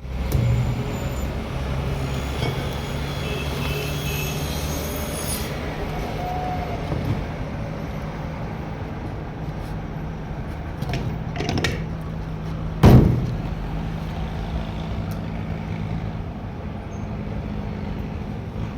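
A vehicle engine running steadily, with one loud, sharp knock about two-thirds of the way through.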